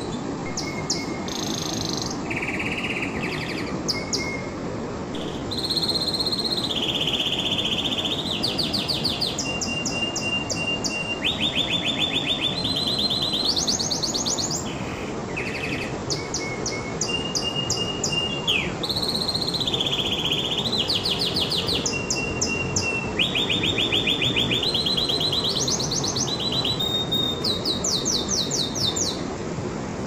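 Domestic canary singing a long, continuous song. It is made of runs of rapid repeated notes, each run held at one pitch for a second or two before jumping to a higher or lower one, with a few short whistled notes between. A steady low background hiss lies underneath.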